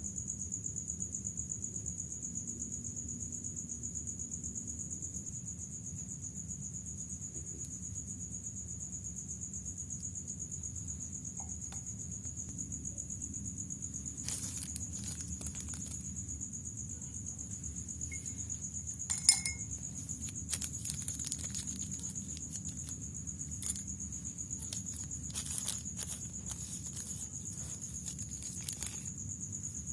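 Crickets chirring steadily in the background. From about halfway through come scattered light clicks and clinks, with one sharper knock about two thirds of the way in.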